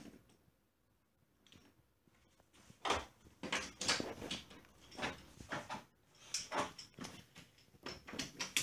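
Wooden toy trains clacking and knocking against each other and the wooden track as a child pushes and handles them. The run of irregular knocks starts about three seconds in.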